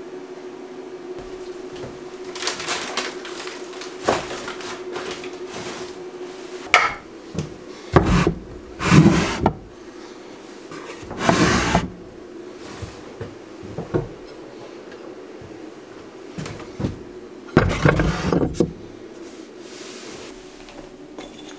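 Ceramic plates, bowls and pots being set down and stacked on a wooden countertop: several bunches of clinks, knocks and rattles, over a steady hum.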